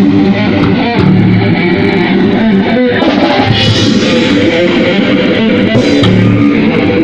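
Rock music with guitars and drums, played loud without a break.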